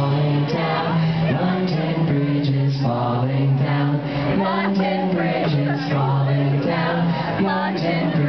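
Live indie pop band playing: electric guitar and a bass line that steps from note to note under male voices singing.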